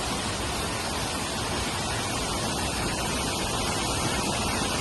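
Steady rushing of water from a small waterfall, an even hiss with no breaks.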